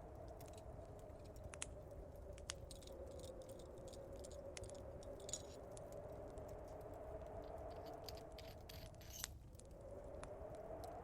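A rusty hand can opener being worked: faint scattered metallic clicks and scrapes. Underneath, a storm wind howls steadily, sinking briefly near the end before rising again, over a low rumble.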